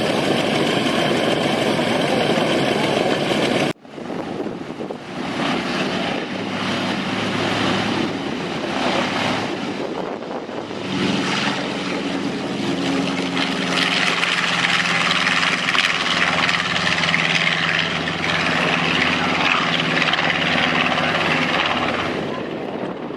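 Propeller aircraft engine running. After an abrupt break a few seconds in, a steady engine drone comes in about halfway through, grows louder, then fades near the end.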